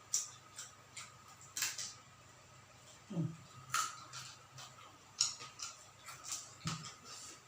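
Close-up chewing of crisp deep-fried quail: irregular crunches, wet mouth clicks and smacks, about two to three a second.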